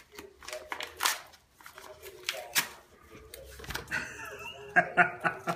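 Paper wrapping crinkling and tearing as it is pulled open by hand, in a run of sharp rustles that is loudest near the end.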